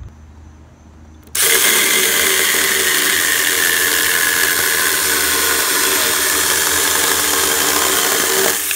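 Saker 4-inch 20-volt cordless mini chainsaw switching on suddenly about a second and a half in and running at one steady pitch as its chain cuts through a 2x4, the loud cutting noise holding until near the end.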